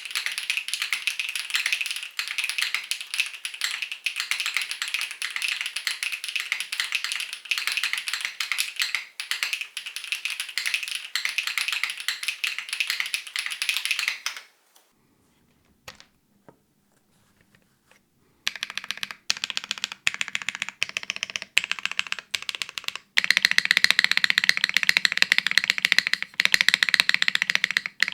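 Fast typing on a custom mechanical keyboard with HMX Grape Soda switches, GMK keycaps on an aluminium plate, top-mounted with no foam: dense rapid key clacks. The typing stops for about four seconds past the middle, then resumes, louder over the last few seconds.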